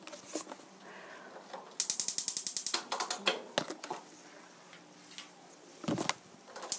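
Gas range's electric spark igniter clicking rapidly, about twelve clicks a second, in a run of about a second near two seconds in and again starting near the end as the burner is lit. A few separate knocks come in between.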